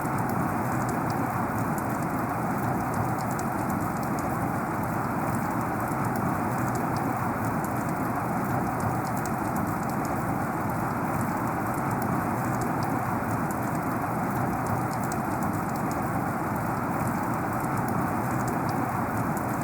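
Heavy rain falling in a steady, even hiss, with faint ticks of single drops scattered through it.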